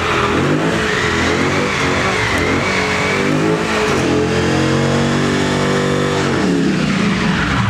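Dodge Charger doing a burnout: the engine is held at high revs while the spinning tyres squeal and smoke, and the revs drop about six and a half seconds in.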